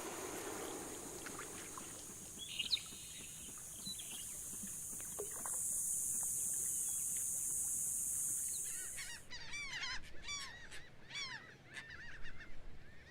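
A steady high buzz of insects, then from about nine seconds in a flock of geese honking, with many short calls overlapping.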